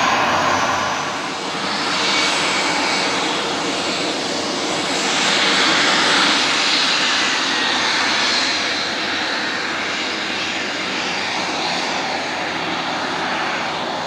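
Twin Pratt & Whitney PW530A turbofans of a Cessna 550B Citation Bravo business jet running at taxi power. They make a steady jet whine and hiss that swells and eases gently as the aircraft taxis.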